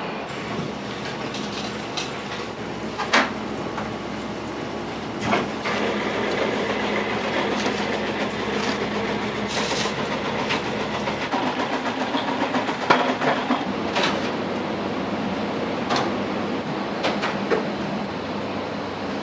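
Restaurant kitchen at work: a steady rushing background noise with sharp clinks and knocks of utensils and dishes now and then.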